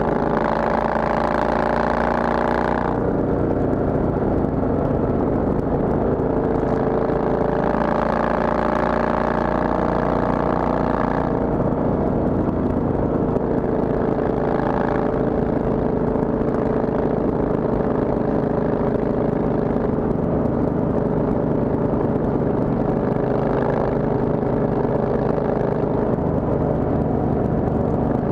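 Triumph Thunderbird's parallel-twin engine heard from the rider's seat on the move. A gear change comes about three seconds in, the revs climb for several seconds, then the engine settles into a steady cruise.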